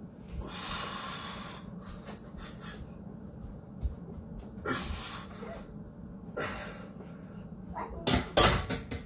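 A man breathing out hard in sharp rushes of air as he presses a heavy barbell on an incline bench, several times, with the loudest and longest breath near the end.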